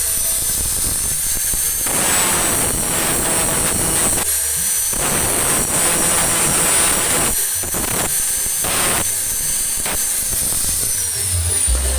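Angle grinder running against metal, a steady high whine with surging grinding noise; near the end its pitch starts to fall away as it spins down.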